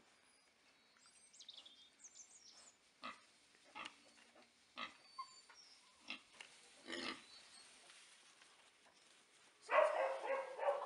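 Micro piglets grunting in straw bedding: short single grunts about a second apart, then a louder, busier stretch of piglet calls near the end.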